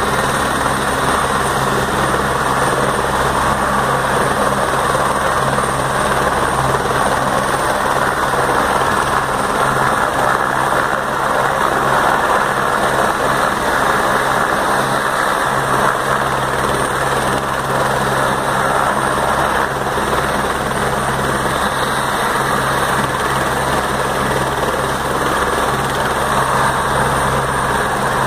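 Helicopter running on the ground with its main rotor turning: a steady, loud turbine and rotor noise with a thin high whine, holding even without rising or falling.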